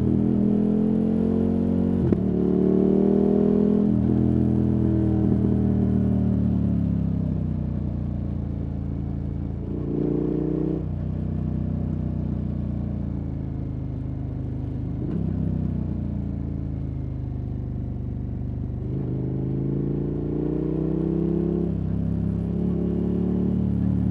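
KTM 1290 Super Adventure S's 1301 cc V-twin running through a Wings aftermarket exhaust while riding through bends, its revs rising and falling with the throttle. The revs climb early, fall away for several seconds, pick up briefly around ten and fifteen seconds, and climb again near the end, with a sharp click about two seconds in.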